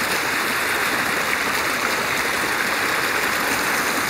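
Steady rushing of running water, as from a stream or small weir flowing past, an even noise that does not change.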